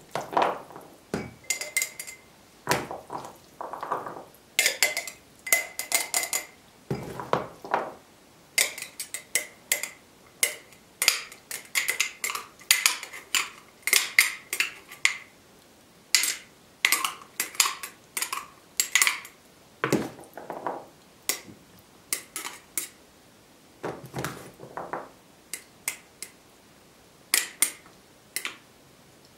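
A metal spoon scooping a chickpea and pork mixture and clinking against glass jars and a plastic bowl as the jars are packed: irregular clusters of sharp clinks, many with a short glassy ring.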